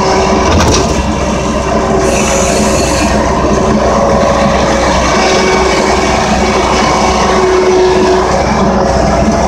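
Engine of a snow-plowing machine pushing a snow box, running steadily under load, with a higher whine that comes and goes.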